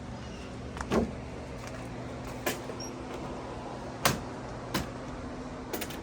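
Nail gun tacking deck boards down: about five sharp shots a second or more apart, over a steady low hum.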